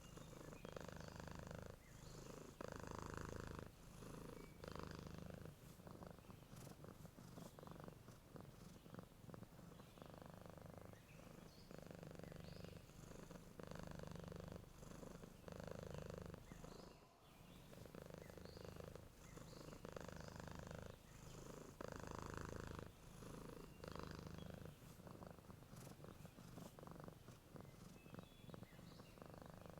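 Domestic cat purring softly while asleep, the purr swelling and easing with each breath, about once every two seconds.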